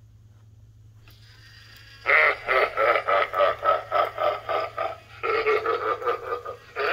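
Young Crouchy clown animatronic's built-in speaker starts playing its recorded sound track about two seconds in: a loud, rapidly pulsing, voice-like sound at about four to five pulses a second. It breaks off briefly near the end and starts again.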